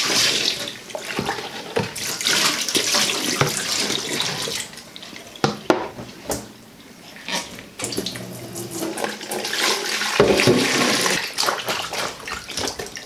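Dirty wash water poured out of a plastic washing-up bowl into a stainless-steel kitchen sink, splashing. After a quieter stretch with a few knocks of the bowl, water splashes in the bowl again as the washing goes on.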